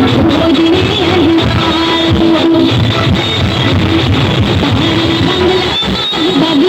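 Music with guitar, loud and continuous, with long held notes.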